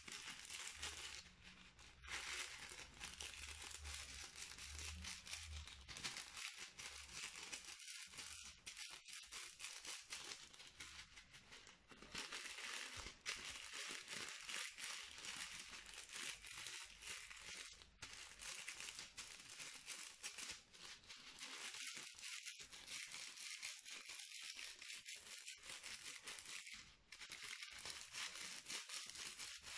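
Plastic piping bag crinkling and rustling in the hands as it is squeezed: a dense crackle with a few brief pauses.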